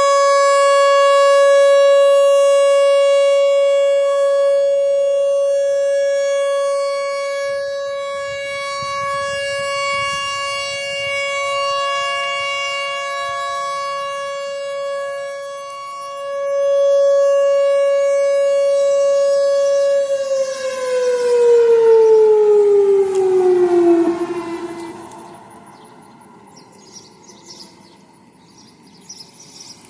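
Whelen Vertex R4 outdoor warning siren sounding a steady tone during a test, its loudness slowly swelling and fading. About 20 seconds in the pitch glides down and the siren dies away.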